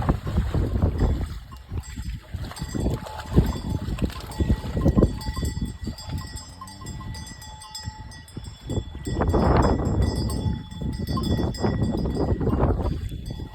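Bells worn by grazing cattle clanking and ringing, with wind buffeting the microphone.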